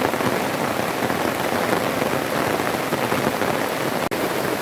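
Heavy rain falling steadily, with a momentary cut-out in the sound about four seconds in.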